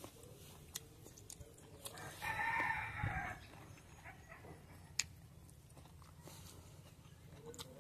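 A rooster crows once, about two seconds in: a call of a little over a second that drops in pitch at the end. A few sharp clicks of eating are heard around it, the sharpest about five seconds in.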